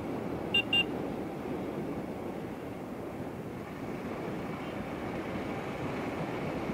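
Steady riding noise of a motorcycle in city traffic, its engine and the wind rushing past. About half a second in, two quick horn beeps sound close together.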